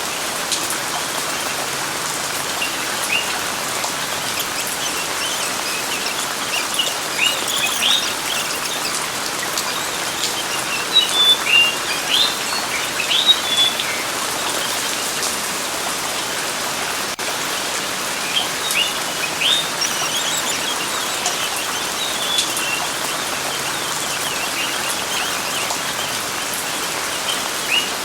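Steady rain with birds chirping over it: short, quick rising chirps in small groups every few seconds.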